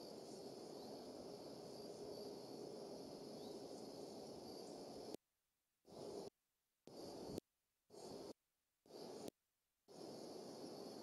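Faint, steady outdoor ambience from a nest-camera microphone: a low hiss and hum with a high, even insect-like band. Between about five and ten seconds in, the audio drops out to dead silence four times, in short gaps.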